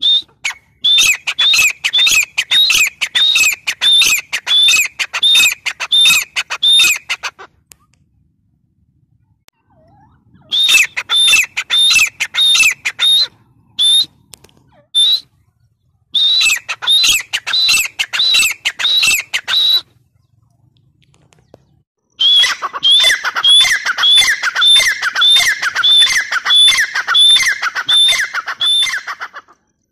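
Grey francolin calling: four long bouts of loud, shrill notes repeated quickly and evenly, two to three a second, with short pauses between the bouts.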